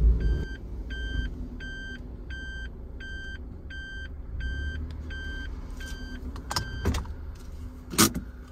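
A car's electronic warning beeper sounding about eleven times, roughly twice a second, over the low steady running of the engine. The beeping stops about six seconds in, and a few sharp clicks and knocks follow, the loudest near the end.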